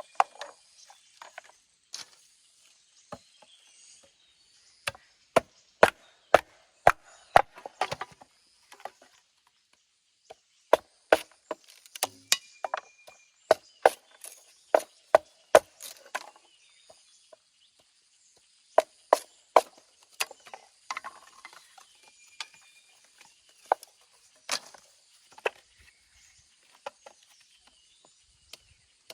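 Wood being chopped by hand: runs of sharp strikes, about two a second, with short pauses between the runs.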